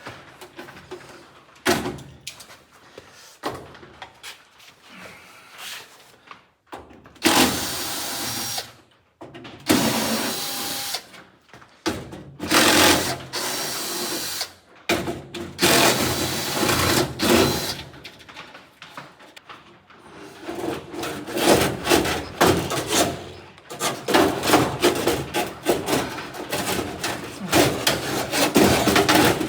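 A power tool runs in several separate bursts of a second or two, then in a longer stretch of rapid rattling strokes over the last third.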